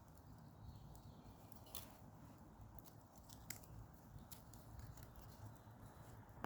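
Near silence: a low steady rumble with a few faint, sharp clicks scattered through it.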